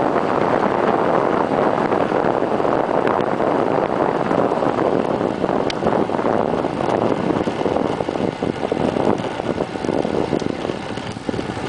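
Wind rushing over the microphone of a camera mounted on the stem of a bicycle coasting downhill at speed, a steady noise that eases off a little in the last few seconds.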